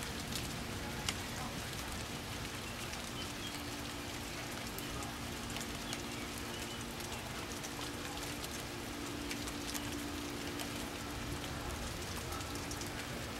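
Steady rain falling in a thunderstorm, with scattered drops ticking close by and one sharper tick about a second in. A faint steady hum runs underneath.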